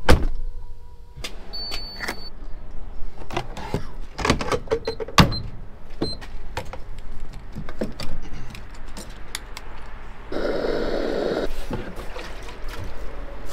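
Handling sounds at a gas pump: a sharp thunk at the start, then scattered clicks and clunks with a few short high beeps as the pump is set up for fueling. About ten seconds in comes a second-long rushing noise.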